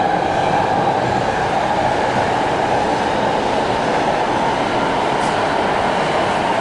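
Steady, loud rushing machine noise that holds unchanged throughout.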